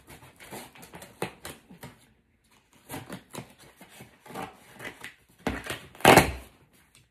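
Scissors cutting and scraping along the packing tape of a cardboard box, a quick run of small snips and scratches with a short pause. Near the end there is one louder scrape of cardboard.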